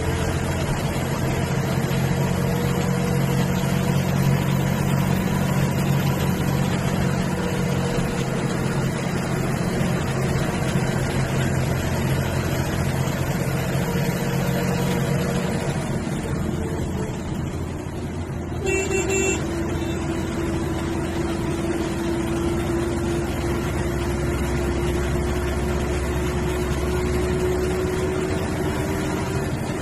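MSRTC bus's diesel engine and road noise heard while riding, with the engine note falling away about halfway through. Soon after, a short horn blast sounds, and a steady hum carries on.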